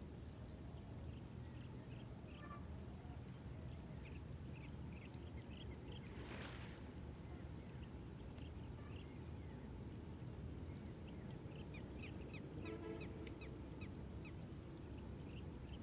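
Birds chirping with short, scattered calls over a steady low rumble. About thirteen seconds in comes a honking bird call, and about six seconds in there is a brief rushing burst.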